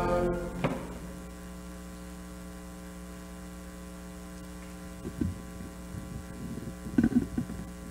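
Steady electrical mains hum from the church's sound system, left after the organ and singing stop within the first second. A few soft knocks come about five seconds in and again near the end.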